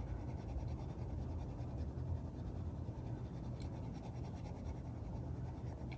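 Soft, steady scratching of an unsharpened Mondo Llama colored pencil shading on coloring-book paper.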